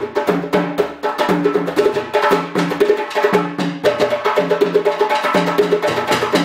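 Live West African hand drumming: djembe and barrel drums playing a fast, steady, repeating rhythm to accompany a dance.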